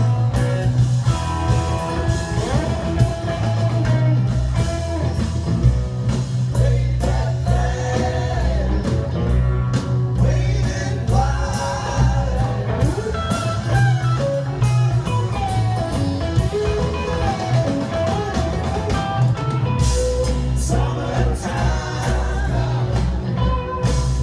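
A live rock band plays with a man singing lead over electric guitars and drums, heard loud through the stadium sound system from the crowd.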